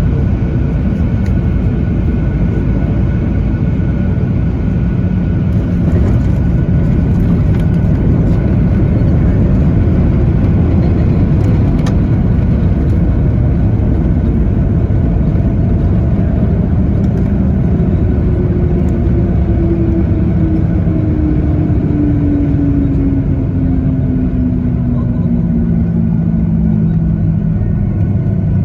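Cabin noise of a Boeing 737-900ER: a loud, steady rumble, with a tone that slides slowly down in pitch over the last ten seconds or so.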